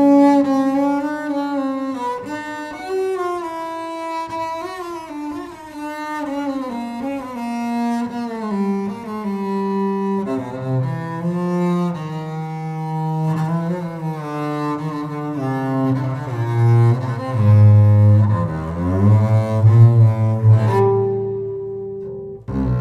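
Solo double bass played with the bow: a slow line of sustained notes, some sliding up or down in pitch. The low notes grow louder in the last third.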